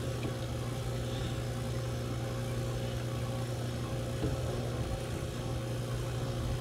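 Steady low hum of running machinery, a constant drone with a few even tones above it, with a faint knock about four seconds in.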